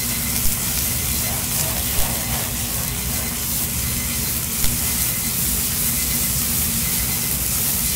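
Mie goreng frying in a wok: a steady sizzling hiss, with three short clicks, about half a second, two seconds and nearly five seconds in.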